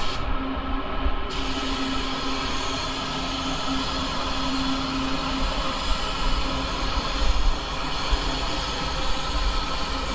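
Gravity-feed paint spray gun hissing steadily as it sprays, over the constant rumble of a paint booth's ventilation.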